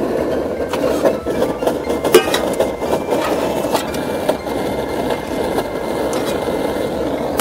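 MSR DragonFly gasoline stove burning with a loud, steady, noisy rush, with a few light clinks scattered through it.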